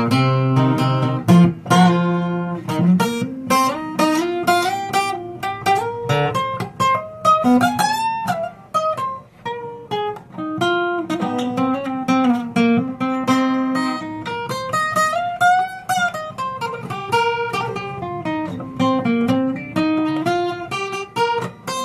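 Steel-string acoustic guitar played alone, with no singing: an instrumental break of quick picked notes and chords, the melody rising and falling.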